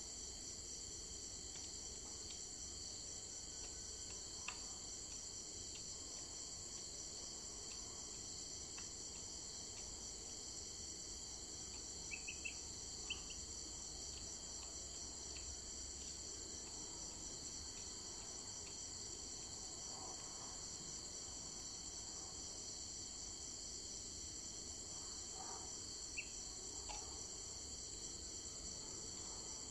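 Steady chorus of insects, crickets or similar, making a continuous high, finely pulsing buzz. A few faint short chirps and clicks come through, around the middle and again near the end.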